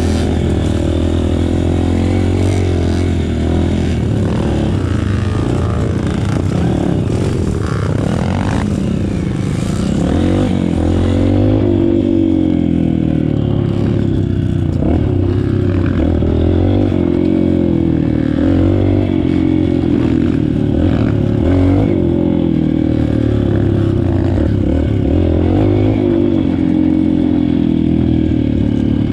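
Motorcycle engine running, its pitch rising and falling as the throttle is opened and closed, over a constant clattering rattle.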